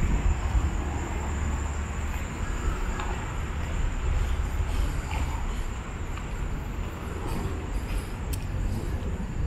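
City road traffic: cars passing on a nearby street with a steady low rumble, and a thin steady high whine running under it.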